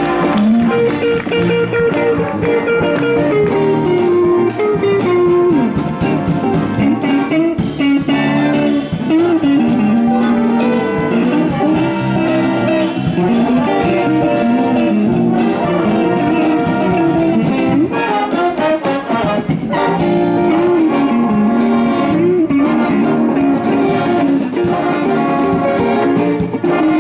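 A school band playing live, with electric guitar and brass instruments together in a continuous tune.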